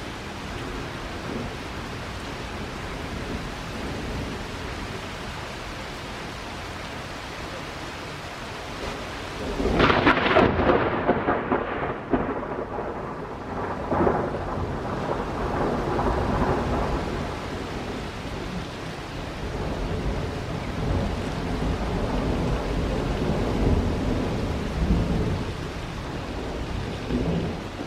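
Thunderstorm: steady rain hiss, then about ten seconds in a loud thunderclap that rolls on as rumbling thunder for several seconds, with further rumbles later on.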